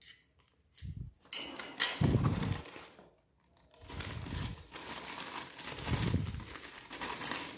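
Thin plastic protective bag crinkling and rustling as hands handle it, in two stretches with a short pause about three seconds in, mixed with a few dull bumps.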